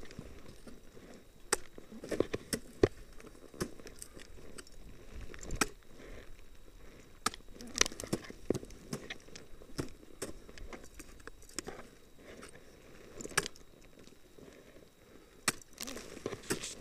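Ice axe picks and crampon points striking into waterfall ice: irregular sharp thwacks and crunches a second or several apart, with scraping and crunching of ice between them.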